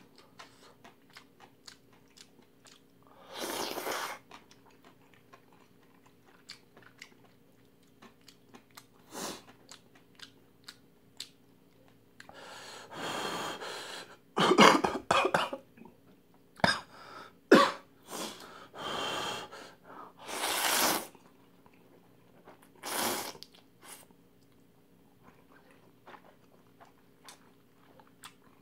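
Close-miked eating of jjamppong noodles: wet chewing with small mouth clicks, broken by several noisy slurps of noodles, the loudest around the middle.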